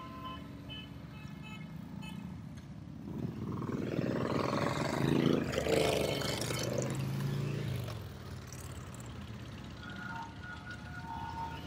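A procession of large touring motorcycles riding past, their engines swelling to a loud pass about four to seven seconds in, then fading.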